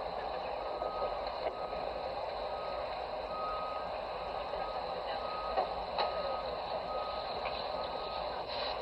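Steady outdoor background noise with a faint beep at one pitch, repeating at short, even intervals like a reversing-vehicle alarm. A couple of light knocks come a little past the middle.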